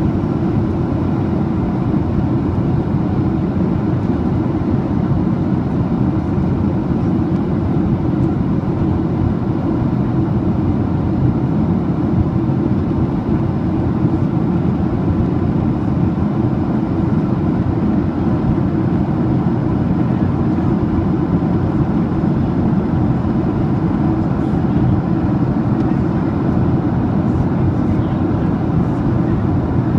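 Steady cabin noise of a Boeing 737-800 in flight, heard from a window seat beside the wing: its CFM56 turbofan engine and rushing air make a loud, even, low rumble that does not change.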